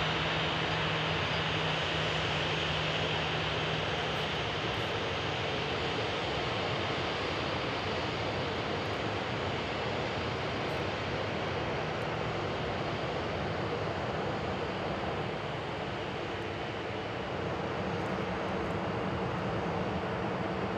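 Jet engines of a Boeing 737-800 (CFM56-7B turbofans) running: a steady, continuous rush with a low hum that fades about four seconds in.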